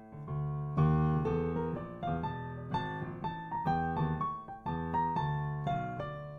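Piano playing a minor ii–V–i progression (Em7♭5 to A7alt to Dm): a right-hand line of single notes from the D harmonic minor scale, starting on A, over sustained left-hand chords that are re-struck every second or so.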